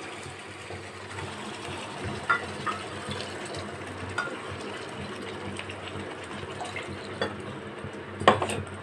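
Watery masala gravy cooking in a steel kadai over a high gas flame, a steady hiss of liquid. A spice paste is tipped in from a steel container with a few light metal clinks, and a sharper clink of metal on the pan comes near the end.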